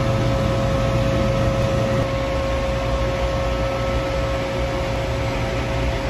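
Lochinvar commercial gas-fired hot water boiler running and firing, with a steady whine from its newly replaced inducer fan motor over a low hum and an even rush. The new inducer motor is working and the boiler is heating.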